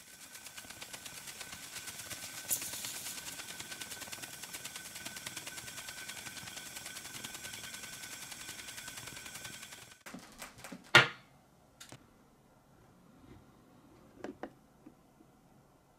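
Brass aeolipile (Hero steam turbine) spinning, its steam jets hissing in a rapid, even pulse with a thin steady whistle. The hiss cuts off suddenly about ten seconds in, followed by one sharp knock and a few light clicks of handling.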